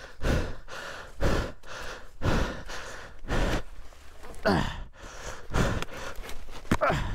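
A rider's heavy, labored breathing close to a helmet-mounted mic, a hard breath about once a second, with a couple of strained, voiced exhales in the second half. He is winded from wrestling a crashed dirt bike upright.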